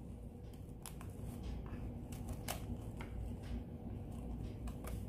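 Plastic cling film crinkling and crackling in irregular small clicks as it is stretched and pressed down over the rim of a plastic bowl.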